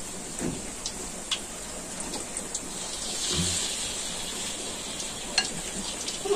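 Cooking oil sizzling steadily in a large wok over a wood fire, heated for frying battered tempeh, with a few sharp pops and a short swell of louder sizzling a little past halfway.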